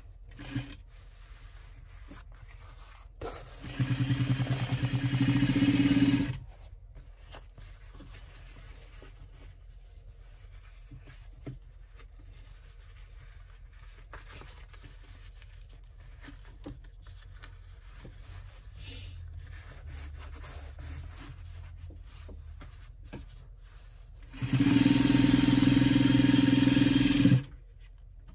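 A sewing machine runs in two steady bursts of a few seconds each, stitching a seam in woven bag fabric, about four seconds in and again near the end. Between the runs there is only quiet handling of the fabric.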